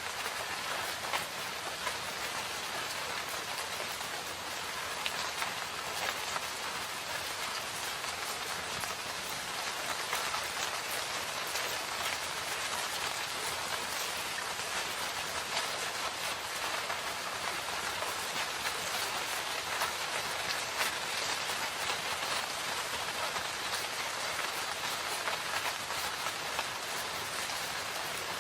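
Steady rain falling in a forest: a constant hiss of rain with many small drop patters on leaves and surfaces.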